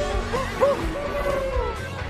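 Background music with a steady low beat and a melody of short sliding notes.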